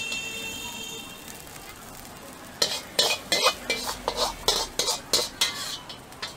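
Stir-frying in a wok: food sizzling while a metal ladle scrapes and clanks against the wok, with a quick run of sharp clanks about three a second starting about two and a half seconds in. A high steady tone sounds through the first second.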